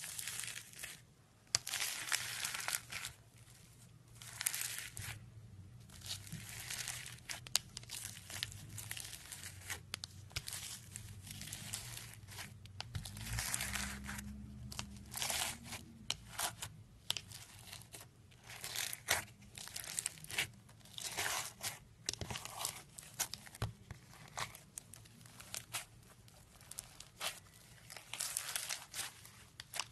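Foam-bead slime (floam) being squeezed and pressed with fingers, crackling and crunching in many short, irregular bursts.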